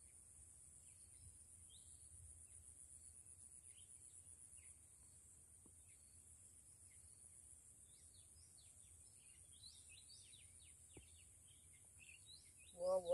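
Faint outdoor ambience: a steady high-pitched insect drone with many short bird chirps scattered through it, the chirps coming thicker from about two-thirds of the way in.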